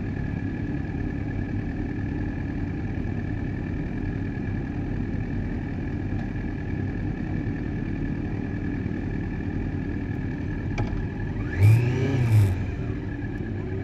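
Yamaha sport motorcycle engine idling steadily, with two quick throttle blips about twelve seconds in that rise and fall in pitch.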